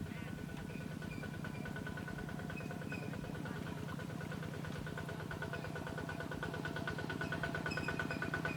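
A small engine running steadily with a fast, even pulse, growing louder near the end.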